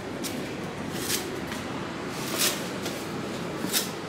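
Kitchen knife slicing through durian husk: a handful of short, crisp cuts, the loudest about midway, over steady background noise.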